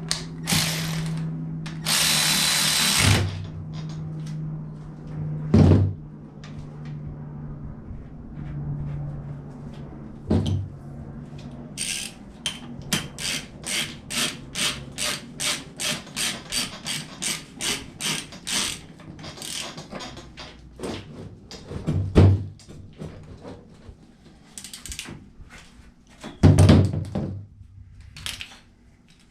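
Hand tools working on a manual transmission case: a ratchet wrench clicking in a quick even run of strokes, about three a second, for several seconds in the middle, among knocks and clunks of tools and parts. A steady low hum runs under the first ten seconds.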